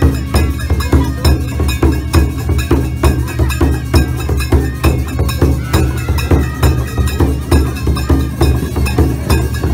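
Live Indian folk drumming: large barrel drums on stands beaten with sticks in a fast, steady beat, with a wind instrument's melody rising above it at times.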